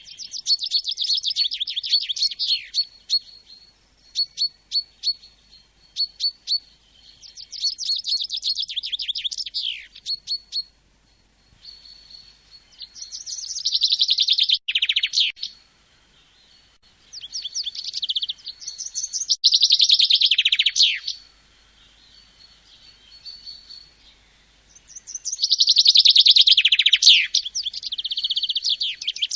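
Songbirds singing: high, rapid trilled phrases a second or two long, repeated with short pauses, with single sharp chirps between them.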